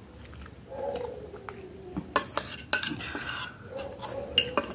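Metal spoon and fork clinking and scraping against a glass plate while scooping noodles, with a quick run of sharp clinks in the second half and one more near the end.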